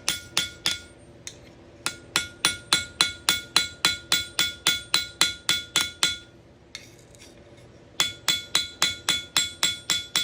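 Quick, even hammer taps peening over a metal pin in a pocket knife's handle, about five taps a second, each with a bright metallic ring. The tapping pauses briefly about a second in and again around six seconds in, then resumes.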